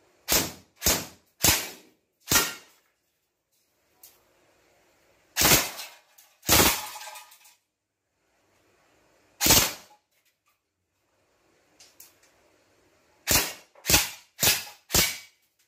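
Double Bell 058M M4 airsoft electric gun (AEG) firing about eleven short, separate bursts of shots. There are four in the first two and a half seconds, three spread through the middle, and four in quick succession near the end.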